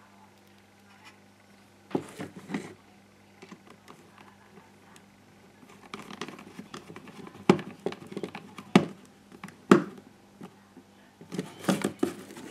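Plastic housing of a GHD 5.0 hair straightener being handled and worked with a small screwdriver: a few clicks about two seconds in, then scattered sharp clicks and knocks, busier near the end.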